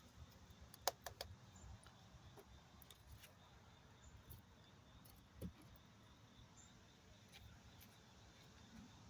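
Near silence: room tone with a few faint sharp clicks about a second in and a soft knock a few seconds later.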